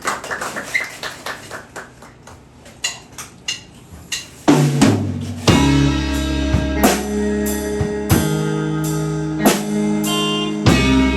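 A live rock band starting a song: a run of light, sharp taps at first, then about four and a half seconds in a heavy drum hit and bass come in, and from about five and a half seconds the full band plays, held bass and guitar notes under regular drum beats.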